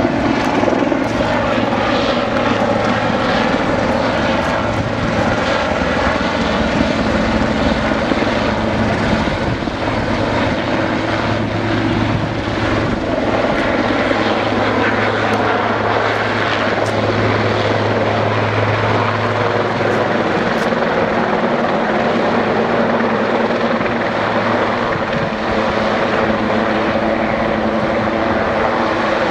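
A helicopter's rotor and turbine engine running steadily and loudly as it flies in and settles onto a helipad, with a constant low rotor hum.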